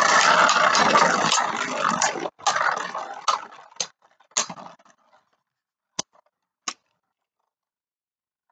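Two Beyblade Burst tops, Wonder Valtryek and Spiral Treptune, spinning and scraping against each other and the plastic stadium floor: a loud whirring that breaks off about two seconds in, then fades out as the tops slow down. A few sharp clicks of the tops knocking follow, the last ones a couple of seconds after the whirring has died away.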